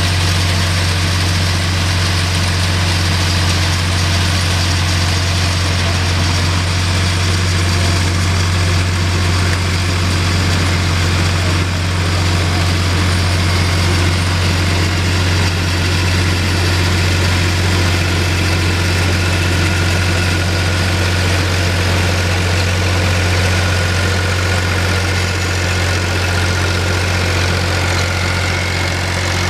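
Self-propelled peanut harvester at work: its engine runs at a steady speed with a constant low hum, over the steady noise of the machinery. A faint higher whine comes in past the middle.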